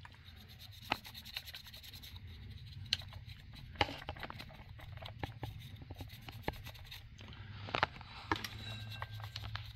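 Small brush scrubbing and dabbing powdered pastel onto the metal boiler of an HO brass model steam locomotive, a soft scratchy rubbing with a few sharp clicks along the way, over a low steady hum.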